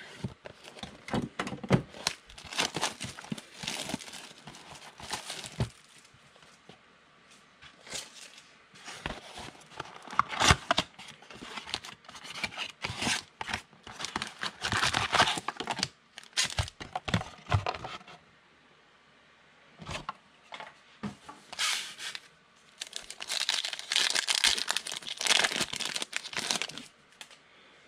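Plastic shrink-wrap on a trading card box crinkling and tearing as it is cut and pulled off, then a foil card pack crinkling as it is torn open near the end. The crinkling comes in irregular spells with short pauses between them.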